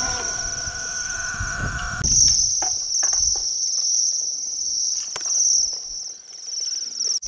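A flock of Bohemian waxwings giving their high, thin trilling calls together as a continuous chorus, faint for the first two seconds and then full.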